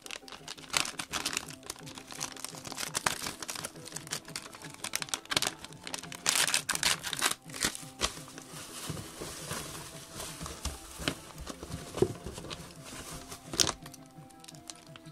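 Clear plastic bag crinkling and rustling as it is opened and the small parts inside are handled, in irregular crackles with several sharper, louder crinkles.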